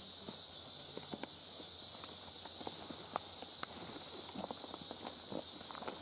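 Footsteps on a forest trail, with scattered small snaps and clicks of twigs and leaf litter underfoot, over a steady high-pitched insect chorus.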